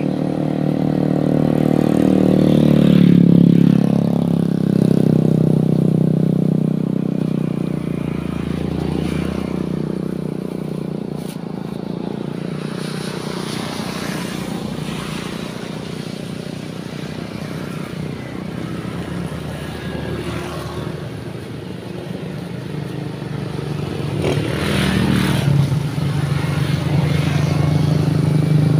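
Motorcycles riding past on the road. The engine note swells as one goes by in the first few seconds, dies down, then builds again near the end as more motorcycles approach.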